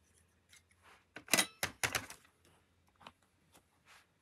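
Handling noise on a craft table: several short, sharp clicks and taps clustered about a second and a half in, then a few fainter ticks near the end.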